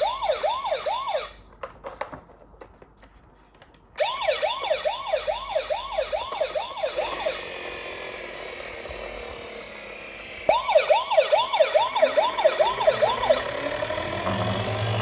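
Toy ambulance's electronic siren wailing up and down quickly, about three rises and falls a second. It cuts off about a second in, starts again about 4 s in and stops near the middle, then plays again for a few seconds later on. A few clicks and a steady noise fill the gaps.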